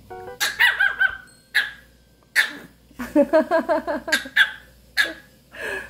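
Small Pomeranian barking crossly in short, high-pitched yaps, with a quick run of barks about three seconds in.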